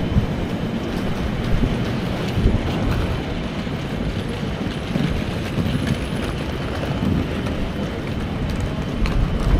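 Steady rumble of road traffic and vehicles running nearby.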